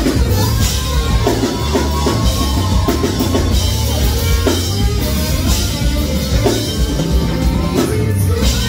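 Live band playing at full volume: drum kit and bass with a saxophone line over them.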